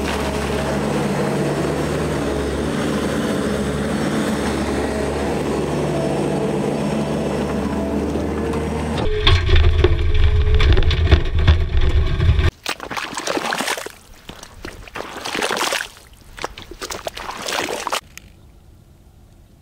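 Skid steer engine running steadily while its bucket pours out water and mud with a sloshing splash. After about nine seconds it grows louder for a few seconds, then gives way to short, broken splashes and sloshing of wet mud, and a quieter stretch near the end.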